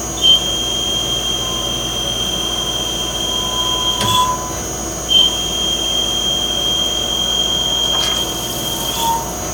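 Yang CNC lathe running a turning program on bar stock, with a steady high whine through each pass. The whine breaks off about four seconds in with a short chirp, starts again a second later, and stops near the end, as the tool takes successive passes.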